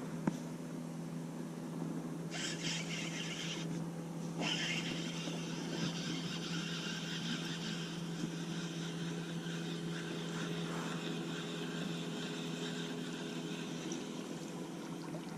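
A small motor running with a steady low hum, under a higher hiss that drops out for about a second and comes back about four seconds in, and one short knock right at the start.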